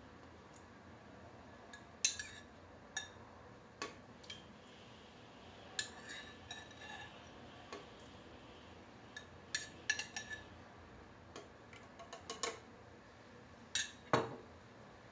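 Metal spoon clinking and scraping against a glass jar while scooping thick yogurt out, in a dozen or more sharp, irregular clinks. Near the end a heavier knock as a container is set down on the countertop.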